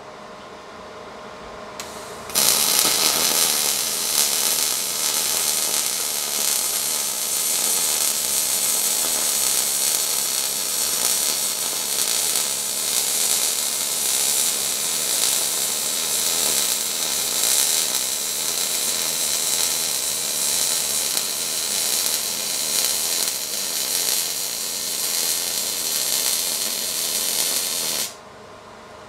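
MIG welder arc running steadily while laying a bead on a steel buggy axle, a steady hiss strongest in the high range. It starts about two seconds in, after a brief blip, and cuts off suddenly near the end.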